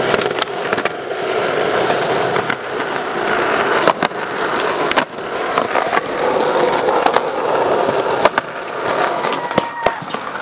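Skateboard wheels rolling over concrete with a steady roar, cut by several sharp clacks of the board striking the ground.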